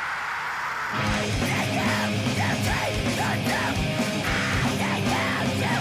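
Loud heavy metal music: a hissing wash of sound, then a drum beat of about two hits a second comes in about a second in, with pitched guitar and vocal lines over it.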